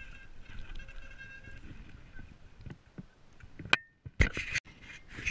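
Mountain bike rolling fast over a dirt trail, tyres and frame rattling, with a faint steady high whine. About three and a half seconds in the bike comes to a stop: a sharp knock, then a burst of loud clunks and thuds as the camera is jolted.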